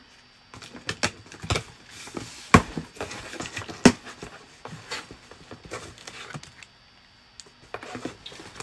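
Handling and opening a cardboard shipping box: scattered knocks, taps and rustling of packaging, with two sharper knocks a few seconds in.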